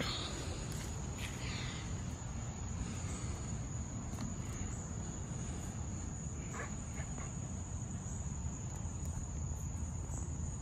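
Crickets giving a steady high trill over a low outdoor rumble, with a few faint rustles and clicks from handling the kayak seat.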